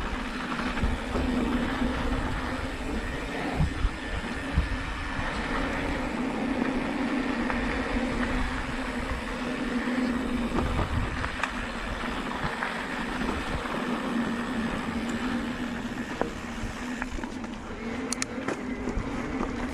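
Riding noise from a Specialized Turbo Levo electric mountain bike on a dirt singletrack: a steady hum from the drivetrain, with tyre rumble over the dirt and scattered rattles and clicks from the bike as it rolls over bumps.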